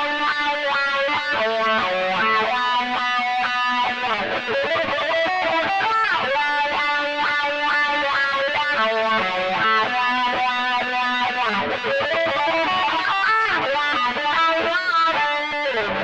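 Electric guitar lead played through the Mooer GE100 multi-effects unit's factory preset P03 "Wah Solo": a continuous solo line of quick notes with many pitch bends and slides, in a wah lead tone.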